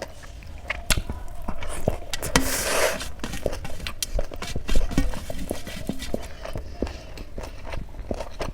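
Close-up eating sounds of a person eating chole with rice: chewing, with many small wet mouth clicks and smacks, and a brief louder rustling burst about two and a half seconds in.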